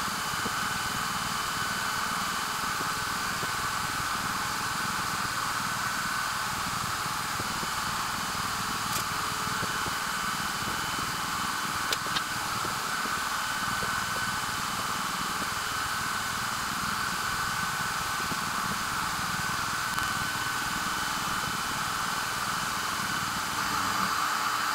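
CNC machine running a diode laser engraving job: a steady hiss of air and fan noise, with a whine that comes and goes every few seconds as the motors move the laser head.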